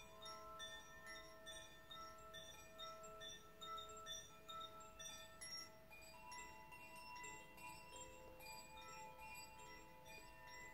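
A hand-held tube chime hanging from a string, ringing faintly: several overlapping notes that sustain and fade, with a new set of notes struck about six seconds in.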